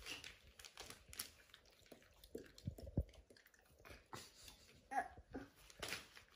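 Faint, scattered rustles and soft knocks from a crinkly foil-lined bag pressed and shifted under a toddler's hands and a lying dog.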